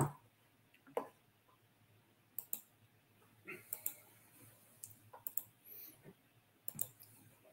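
Faint, irregular clicks of a computer keyboard and mouse, a few at a time with short pauses between.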